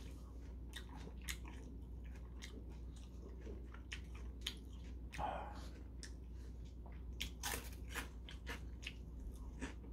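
Close-up crunching and chewing of Nongshim Saewookkang Black shrimp crackers: a run of short, crisp crunches while a mouthful is bitten and chewed.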